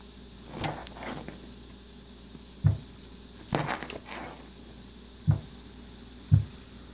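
Siamese cat rolling and pawing on a wooden tabletop: two spells of scuffling, rustling noise and three short dull thumps.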